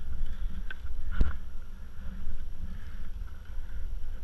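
Wind buffeting the microphone with water lapping against a kayak hull on a choppy sea, and one sharp knock about a second in.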